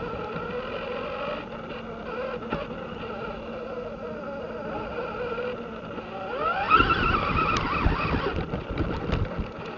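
Losi Rock Rey RC rock racer's electric motor and drivetrain whining steadily. About six and a half seconds in, the whine rises in pitch as the truck speeds up, and it gets louder, with a run of knocks and rattles from the chassis.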